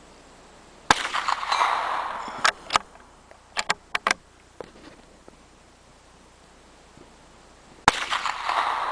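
Two shots from a CZ 452 American bolt-action .22 LR rifle, about seven seconds apart, each a sharp crack with a trailing echo. After the first shot the bolt is worked in a quick series of metallic clicks.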